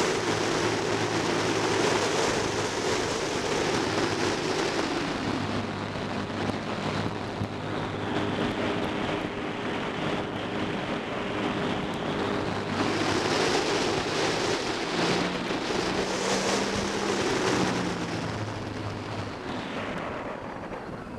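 Personal watercraft running fast over flooded river water: a steady engine drone under the rush of water spray and wind on the microphone. It eases off and grows quieter near the end as the craft slows.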